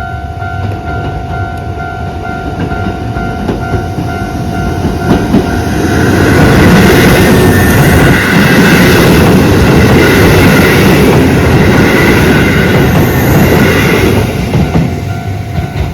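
A level crossing's electronic warning bell rings in a steady, evenly repeated tone. About six seconds in, a Keisei Kanamachi Line train passes loudly over the crossing and drowns out the bell. The train fades near the end and the bell is heard again.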